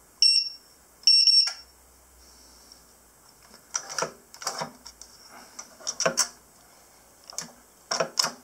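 Digital keypad of a home safe beeping: one short beep, then a longer beep about a second in. After that come a series of sharp clicks and knocks as the safe's knob is turned and its lock mechanism moves.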